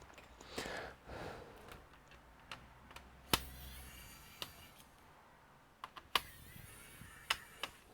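Scattered light clicks and taps of a laptop's plastic casing and keyboard parts being handled during disassembly, one sharper click a little past three seconds in.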